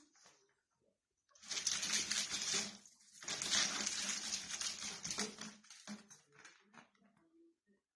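Ferrets scrabbling and knocking about with a play tube on the floor: a rapid clattering rustle in two bursts, the first about a second and a half long and the second about two and a half, with a few small clicks around them.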